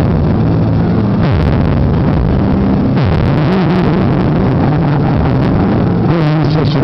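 Very loud, distorted, bass-heavy music played through a car sound system, with low bass notes shifting in steps.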